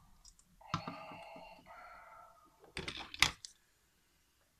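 A McDonald's Darth Vader head toy plays a raspy electronic sound effect through its tiny speaker, in two parts of about a second each. Then come a few sharp clicks and knocks of hard plastic as the toy is handled and set down on the wooden surface, and the sound cuts off suddenly.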